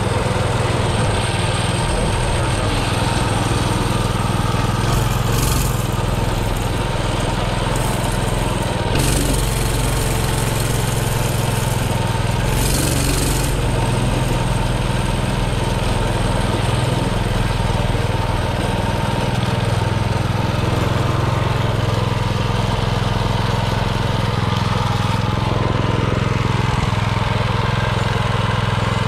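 Subaru 7.0 single-cylinder engine on a mini bike, running steadily at a fairly even pitch through a ride. The owner says the engine still has a carburetion problem and is not as fast as it should be.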